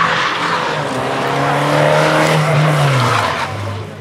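Race car's engine held at high revs as the car slides through a corner on tarmac, with the tyres scrubbing and squealing. Near the end the engine note falls and the sound fades as the car pulls away.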